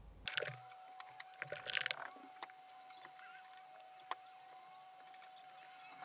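Quiet room with a brief rustle of clothing in the first two seconds as a seated person shifts at the table. After it come a few faint sharp clicks and a faint steady high tone.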